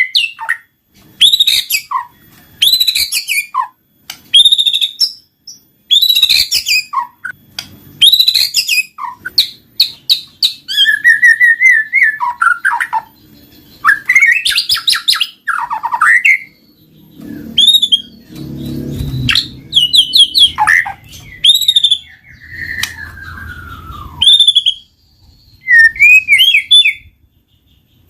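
White-rumped shama (murai batu) in full song: loud whistled phrases, sweeping notes and rapid trills in quick bursts with short pauses. This is the continuous 'gacor' song used as a lure to prompt other shamas to sing. A low rumble lies under the song for a few seconds past the middle.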